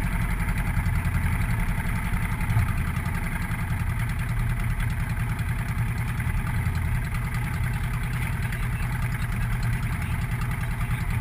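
Motorcycle engine idling steadily, with an even low pulsing rumble.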